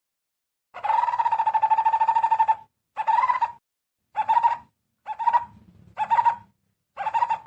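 Barbet (cu rốc) calling: one long rapid pulsing call of about two seconds, then five short pulsing calls about a second apart, all at one steady pitch. A flock-gathering call.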